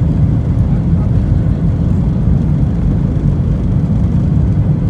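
Steady low rumble heard inside the cabin of a Boeing 737-900 as it taxis: its CFM56 jet engines at low thrust and the gear rolling over the taxiway.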